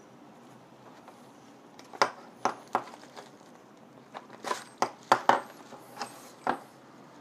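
A run of small sharp clicks and taps, about ten over a few seconds and loudest past the middle, from hands working needle, thread and buckskin while hand-stitching a leather pouch.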